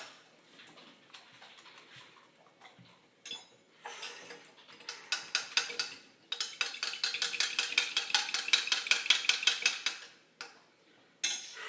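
A utensil clinking against a dish, scattered clinks at first, then a fast, steady run of clinks for several seconds, as in stirring or whisking.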